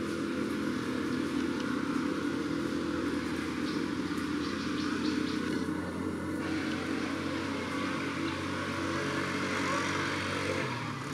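An engine running steadily, a low even hum with no change in speed.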